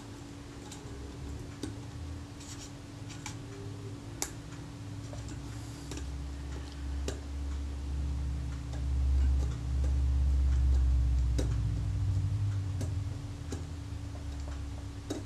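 Scattered light clicks and small scrapes of a scalpel working old leatherette loose from a metal camera body, over a steady low hum. A low rumble of handling swells from about six seconds in and eases a couple of seconds before the end.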